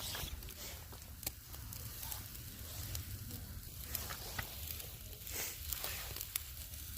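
Chicken kebabs sizzling on a grill: a steady hiss with scattered small crackles and pops.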